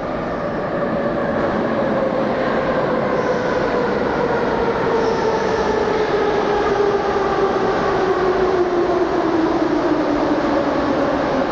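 Moscow Metro train pulling into the station: a loud rumble of wheels on rail that swells over the first second. Over it, the electric traction motors' whine falls steadily in pitch as the train slows.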